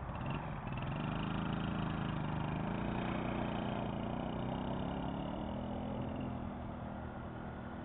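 Suzuki LT50 kids' ATV's small two-stroke engine running under throttle. Its pitch rises about a second in, holds, then drops back a little near the end.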